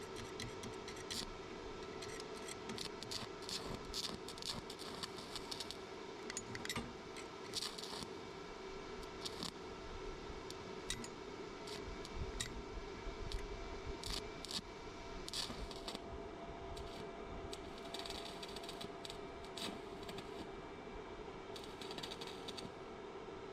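Irregular sharp clicks and scrapes of hands-on repair work on the cart's metal parts, over a steady hum.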